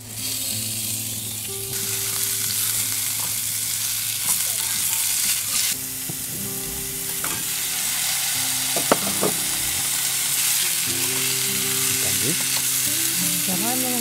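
Beef sizzling and frying in hot oil with onions in a cast-iron Dutch oven. The sizzle jumps up as the meat goes in at the start and grows as more pieces are added, with chopsticks stirring the contents.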